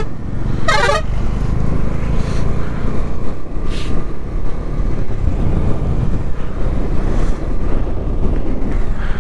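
Bajaj Dominar 250 single-cylinder motorcycle riding downhill: a steady low engine and road rumble, with a short wavering vehicle horn toot about a second in.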